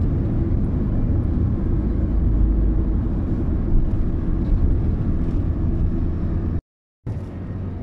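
Steady low rumble of a car's engine and road noise heard inside the cabin while driving along a highway. The sound drops out completely for a split second near the end.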